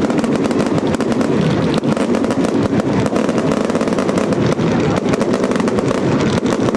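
Daytime fireworks barrage: a dense, unbroken run of sharp bangs, many a second, from shells bursting overhead and effects firing from the ground.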